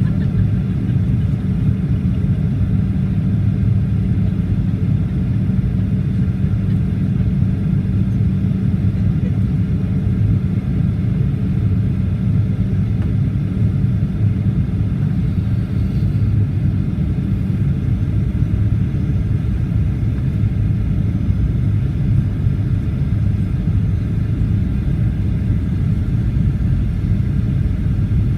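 Steady cabin noise inside a Boeing 737-800 descending toward landing: a low rumble of the CFM56-7B engines and airflow, with a steady low hum running through it.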